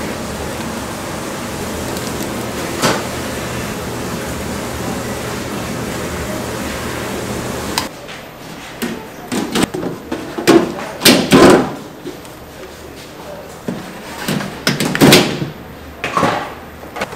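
Steady kitchen background noise with a single knock about three seconds in, then, from about eight seconds in, a string of sharp clanks and clatters of stainless steel food pans being set down into a serving counter and a plastic lid laid over them.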